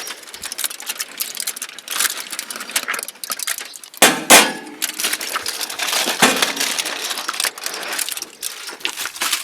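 Aluminium foil crinkling and crackling as foil-wrapped ribs are unwrapped and lifted, with a louder rustle about four seconds in.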